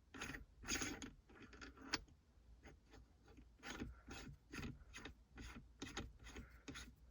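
Faint, irregular clicking and rubbing, about two a second, as an aftermarket carbon fiber shift knob is twisted by hand on the gear lever's threads and locking collar.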